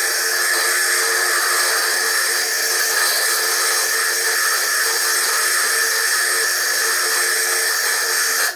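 Foredom bench lathe running steadily with a water-cooled core drill grinding into a hard stone, a high, thin whir and hiss from footage played at three times speed. The sound drops out briefly near the end.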